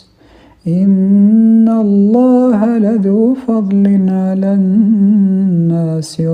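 A man's unaccompanied Quran recitation in melodic tajweed style: after a short breath pause, one long held, ornamented line with turns in pitch, broken briefly near the end.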